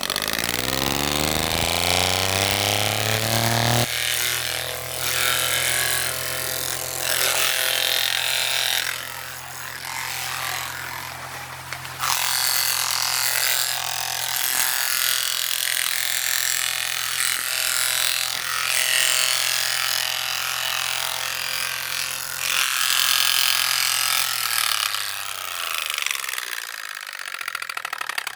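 A motor speeding up over the first few seconds, running steadily with a fluctuating hiss over it, then winding down near the end.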